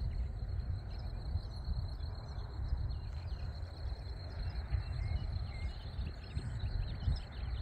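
Outdoor field ambience. Wind rumbles unevenly on the microphone, over a steady high-pitched insect trill and a few faint bird chirps.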